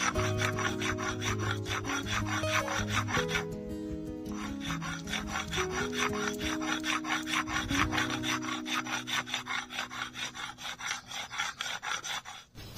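Stone pestle (nora) scraping back and forth on a flat stone grinding slab (sil), crushing chopped ridge gourd into a wet paste. The strokes come in a quick, steady rhythm, with a short break about three and a half seconds in.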